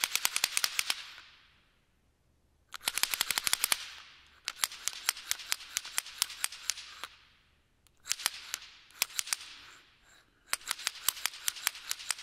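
Strings of firecrackers popping in five rapid bursts, each crackling run fading out in an echoing hiss before the next begins.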